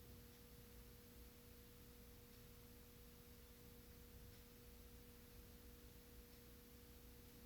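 Near silence with a faint, steady low hum of two tones.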